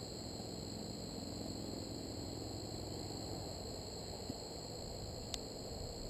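Steady outdoor insect sound around open beehives: a low hum of honeybees under a constant high-pitched insect trill, with one sharp click about five seconds in.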